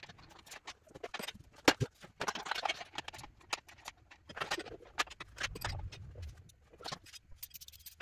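Irregular metallic clicks and knocks from a ratchet spanner and a second spanner levering it, worked on a tight engine-mount bolt that will not yet turn.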